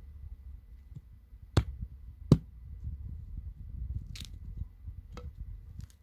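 Two sharp cracks about a second apart, then a few lighter clicks, from sticks being snapped and set in place while a campfire is built in the snow. A low steady rumble runs underneath.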